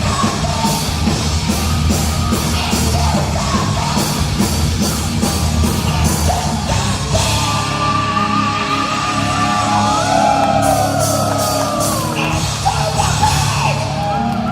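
Live heavy metal band playing loudly, with shouted vocals over drums and guitars, in a large hall. Sliding, wailing high notes come in over the second half.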